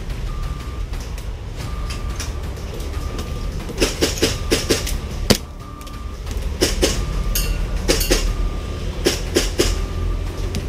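Sharp airsoft gun clacks in scattered bursts, the loudest one about five seconds in. Under them a vehicle's reversing beeper sounds about once a second.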